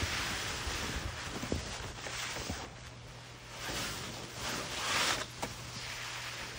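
Snow sliding off a roof down a SnowPeeler roof rake's slide: a rushing hiss that swells several times as slabs slide and fall, with a few short knocks.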